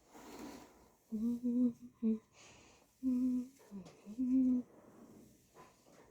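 A person humming a short tune: about five held notes, each around half a second, one of them sliding down in pitch.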